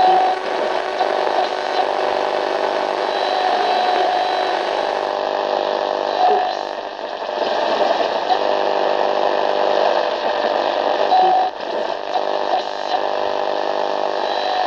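Radio static: a steady hiss with faint held humming tones and short whistling tones that come and go every few seconds, dipping briefly near the end.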